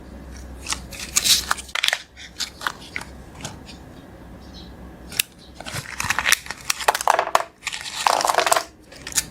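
Crinkling and crackling of a Kinder Joy egg's wrapper being handled, in short bursts about a second in and again from about five and a half seconds on, with scattered clicks between.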